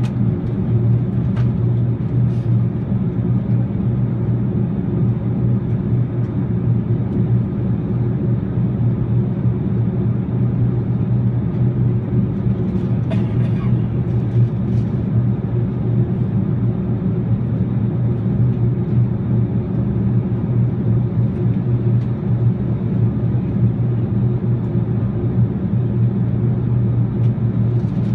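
Steady low rumble of engine and airflow noise inside the cabin of an Airbus A380, heard from the upper deck, with a few faint clicks partway through.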